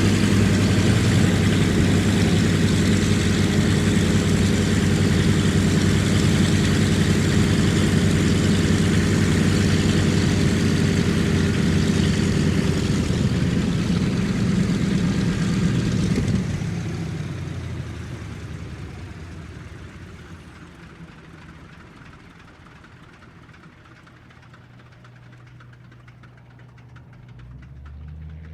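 1945 Douglas DC-3's twin radial piston engines idling steadily, then shut down about 16 seconds in, the engine sound dying away over several seconds. A faint low hum comes up near the end.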